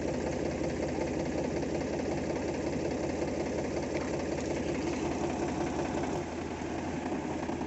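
Powertrac tractor's diesel engine idling with a steady, rapid chugging; it becomes quieter about six seconds in.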